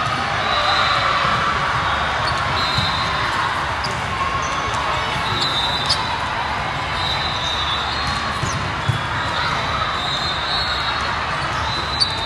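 Indoor volleyball gym din: a steady background of many voices in a large hall, with sharp ball smacks about every three seconds, the loudest near the end, and short high-pitched tones coming and going.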